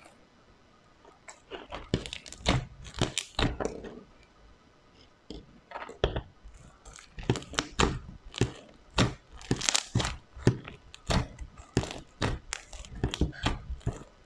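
Crunchy slime being squeezed and pressed by hand, giving irregular clusters of crackling, popping crunches, with a quieter gap around four to five seconds in.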